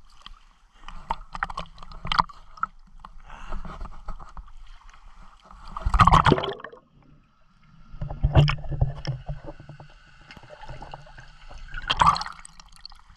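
Pool water sloshing and gurgling around a GoPro in its waterproof case as it dips in and out of the surface, with three loud splashes against the housing.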